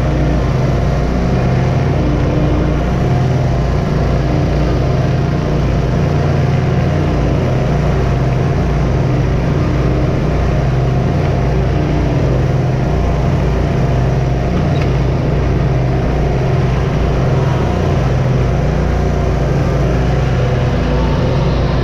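Hustler zero-turn lawn mower's engine running steadily under mowing load, with no change in pitch or level.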